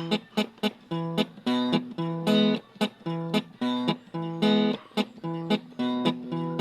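Bachata requinto guitar playing a picked melodic intro, quick plucked notes at about three or four a second with some held longer.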